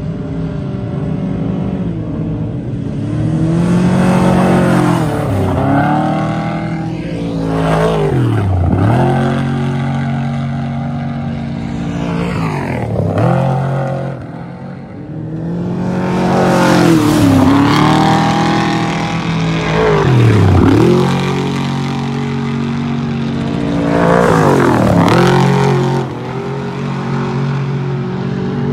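Off-road desert race vehicles passing one after another at speed, about six passes, each engine note swelling and then falling away as it goes by. Under them runs a steady engine drone.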